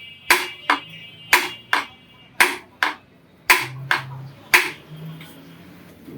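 Hammer blows on iron at an anvil, forging a boti blade: paired strikes, a heavy one then a lighter one, about once a second, some with a short metallic ring. The hammering stops a little over four and a half seconds in.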